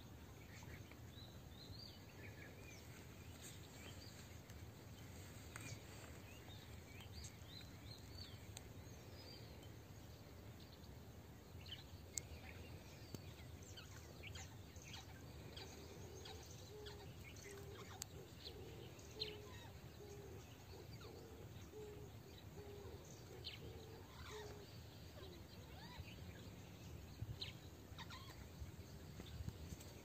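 Faint outdoor ambience: scattered short bird chirps over a low rumble, with a run of short, low repeated calls about halfway through.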